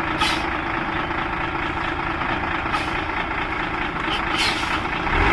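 Heavy diesel engine running steadily, with two short hisses, one at the start and one near the end.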